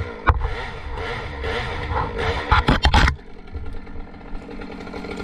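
Chainsaw running at idle, with a burst of sharp cracking and crashing about two and a half to three seconds in as a cut tree breaks its hinge and comes down.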